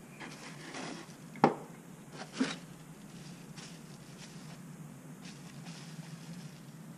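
Hard plastic weather-station parts handled on a workbench, with two sharp knocks about a second apart, then the soft crinkle of a small plastic parts bag being handled, over a steady low hum.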